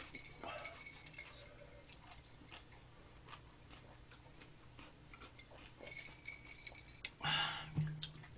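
Close-miked eating sounds: chewing with scattered light clicks of chopsticks and dishes, and a short breathy sound near the end.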